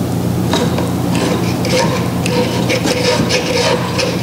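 Stiff Spectre cord being pushed through a pass-through and worked down inside a kayak hull: irregular scratching and ticking as the cord rubs along, over a steady low hum.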